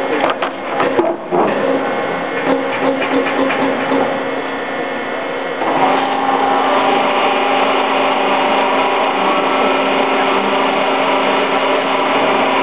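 Plate-rolling machine bending an aluminum composite panel with a clear anodized finish. For the first five seconds or so there is a dense crackle of small snaps like radio static or bubble wrap, the sign of the anodized finish cracking as the panel bends. About six seconds in, the machine's drive comes in louder with a steady hum and whine.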